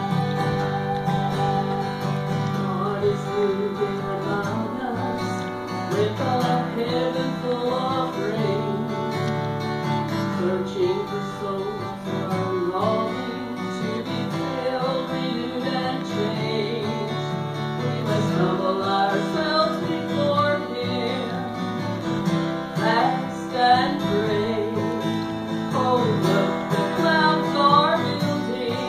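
Live acoustic country-folk music: two acoustic guitars strumming steady chords, with a melody line that moves and bends above them.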